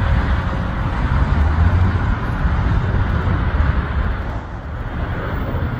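Business jet climbing out just after takeoff: a loud, steady jet engine rumble with heavy low end, easing a little near the end.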